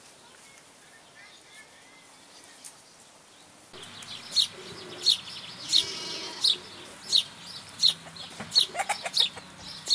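Chickens calling and clucking, starting about four seconds in, with a sharp high chirp that repeats roughly every 0.7 seconds; the first few seconds are only faint background.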